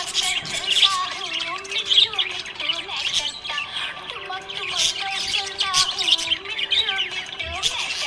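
A flock of budgies chirping and warbling continuously in quick, overlapping chirps, over a background music melody.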